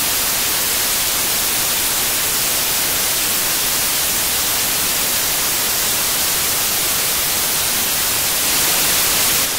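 Loud, steady static: an even white-noise hiss used as a sound effect.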